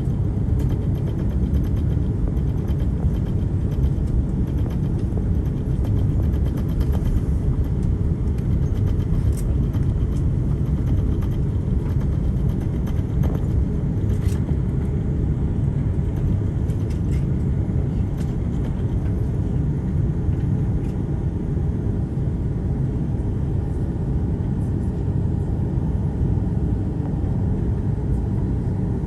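Steady low rumble inside the cabin of an Airbus A330-300 taxiing, its Rolls-Royce Trent 700 engines running at idle. There are a few faint clicks about a third and halfway through.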